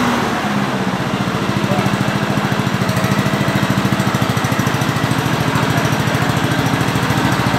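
Honda HRJ 216 walk-behind lawnmower's single-cylinder petrol engine running steadily at an even speed, with a regular pulsing beat.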